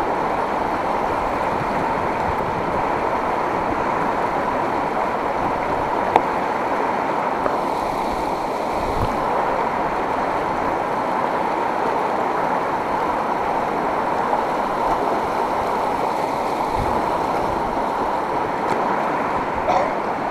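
Fast river water rushing steadily, with one short click about six seconds in.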